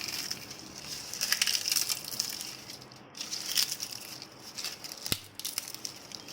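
Dry Indian bay leaves (tejpatta) being crushed: an irregular crackling and crumpling that comes in uneven bursts, with one sharp click about five seconds in.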